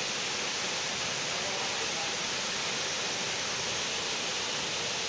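Waterfall pouring down rock into a pool: a steady, even rush of falling water.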